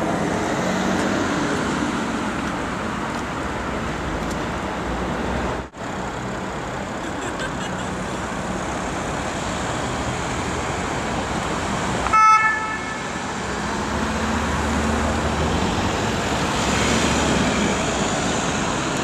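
Steady city traffic noise as motorcade cars and vans drive past. About twelve seconds in, a vehicle horn gives one short, loud toot.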